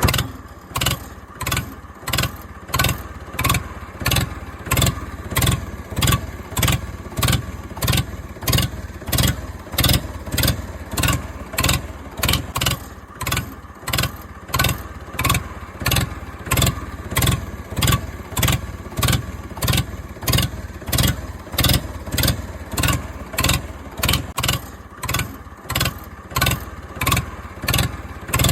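Engine sound pulsing in an even rhythm, about one and a half beats a second, over a steady running drone.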